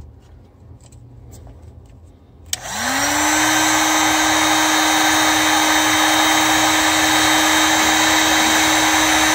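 Electric heat gun switched on with a click about two and a half seconds in, its fan motor spinning up with a rising whine and then running steadily with a loud rushing blow, heating shrink tubing over a spliced fiber optic cable.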